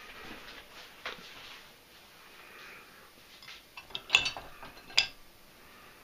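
China dishes and the wire rack of a dishwasher being handled, clinking and clattering: a single clink about a second in, a cluster of sharp clinks about four seconds in and one more loud clink about a second later.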